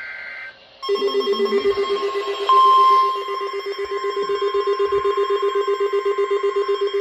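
Emergency alert attention signal of an EAS weekly test: a loud, rapidly pulsing ringing tone starts about a second in, with a brief, louder, steady higher tone about two and a half seconds in.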